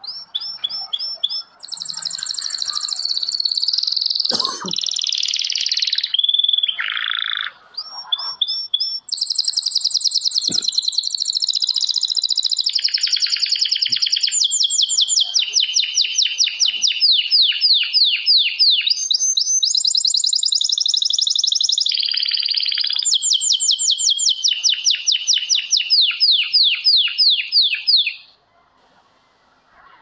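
Songbirds singing: long runs of rapid, high chirping notes, several a second, in repeated phrases. The singing stops shortly before the end.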